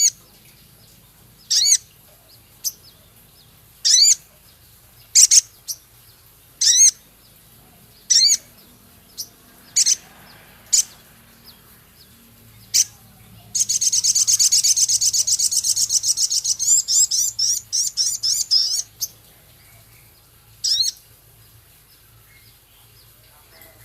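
Male sogon (crested jay) singing. It gives a series of short, sharp high notes every second or so, then a fast, harsh chattering rattle for about five seconds. One more note follows.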